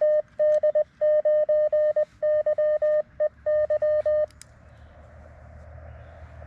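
Morse code (CW) from an amateur radio transceiver: one steady pitched tone keyed on and off in dots and dashes for about four seconds. After that the receiver's band hiss carries on.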